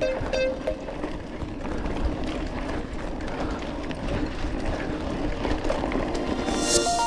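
Rough, steady wind and riding noise from an off-road ride, with no clear engine tone. Background music fades out at the start and comes back near the end.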